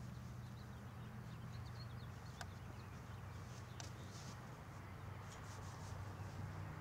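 Quiet outdoor ambience: a steady low hum, a few faint high bird chirps in the first couple of seconds, and two sharp little clicks about two and a half and four seconds in.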